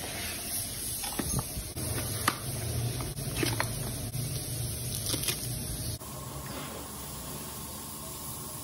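Sharp metallic clinks and knocks over a steady low mechanical hum, workshop noise from a car's engine oil change. The background changes abruptly about six seconds in.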